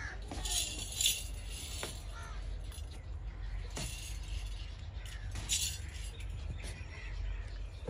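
A few short bursts of metallic jangling, irregularly spaced, as the hobbled camel shifts its legs, over a low steady rumble.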